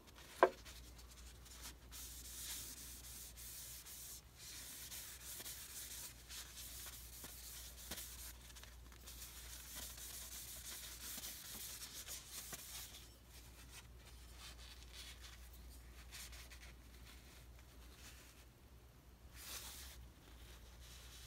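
Paper towel rubbing back and forth along the wooden handle of a small Stanley ball peen hammer, a faint scratchy wiping sound in stretches. There is a sharp click about half a second in and a steady low hum underneath.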